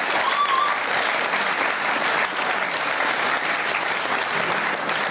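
Studio audience applauding steadily, a crowd of hands clapping together.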